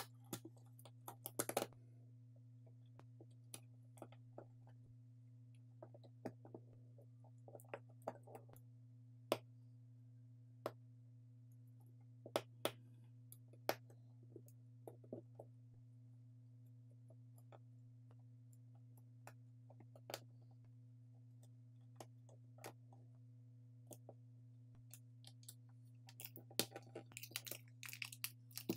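Scattered small clicks and taps of phone parts and repair tools being handled and pressed into place during reassembly, with a cluster about a second in and a denser run of clicks near the end, over a steady low hum.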